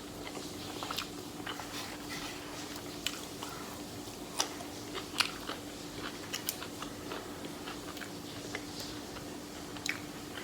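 Close-up chewing and wet mouth clicks of a person eating a sushi roll, irregular and moderately loud, over a steady hum.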